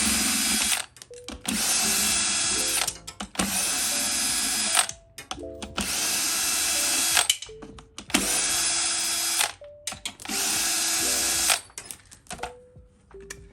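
Cordless power tool, such as a drill or electric ratchet, running fasteners out on an engine in about six short bursts of a second or so each, with brief pauses between them.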